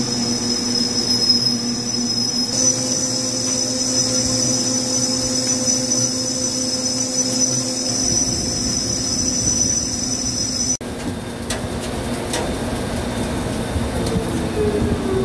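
CNC vertical lathe turning a large forged steel ring, its tool cutting under heavy load with coolant flowing: a steady machine hum with a high whine. About eleven seconds in the sound changes abruptly and the whine stops, and a falling tone follows near the end.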